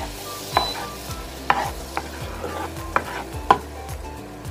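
Butter sizzling as it melts in a granite-coated nonstick pan, stirred with a wooden spoon that knocks against the pan several times, most sharply about three and a half seconds in.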